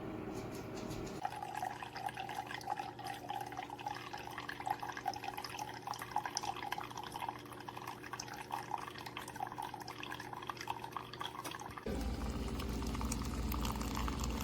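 Keurig K-Brew+Chill coffee maker brewing: coffee streams and drips into the cup as a dense patter of drops. A low machine hum stops about a second in, and a louder low hum starts near the end.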